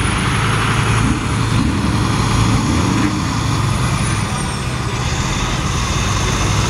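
Diesel dump truck rolling slowly past at low revs, its engine a steady deep drone. A thin high whine runs over it and falls in pitch about five seconds in.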